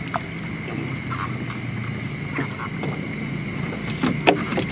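Frogs croaking and insects trilling in a steady night chorus, with a few sharp knocks near the end.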